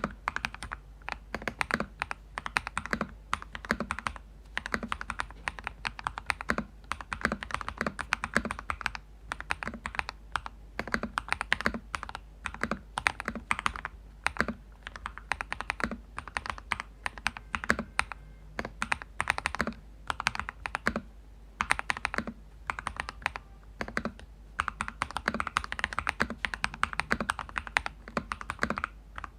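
Typing on a 60% mechanical keyboard with lubed Crystal Red linear switches: a continuous run of firm, thocky keystrokes in quick bursts with brief pauses, each press bottoming out with a low knock.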